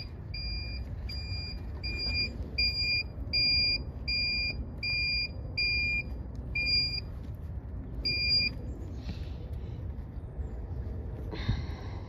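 Electronic alarm from refrigerant charging equipment beeping steadily, short beeps about twice a second, stopping about two-thirds of the way through. A brief hiss comes near the end.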